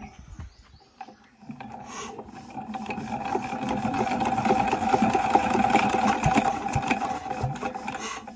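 20 hp stationary diesel engine being turned over by hand during a start attempt: a fast, even mechanical whirring and clatter that builds up over a few seconds, holds, then slows near the end.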